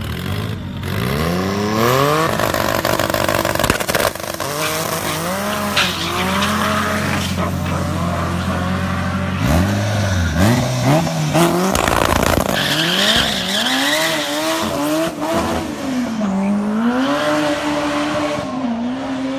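Drag-racing hatchbacks, one a Honda Civic EG, doing burnouts to warm up their slicks: engines revved hard up and down while the spinning tyres squeal against the track.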